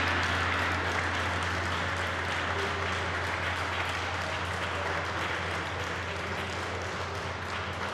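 A small group applauding by hand-clapping just after a ceremonial gong stroke, the applause slowly dying down.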